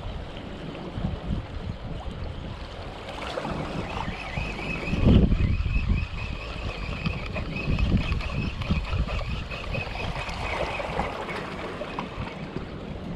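Wind buffeting the camera microphone in gusts, with water sounds beneath and one stronger gust about five seconds in. A faint steady high whine runs through the middle.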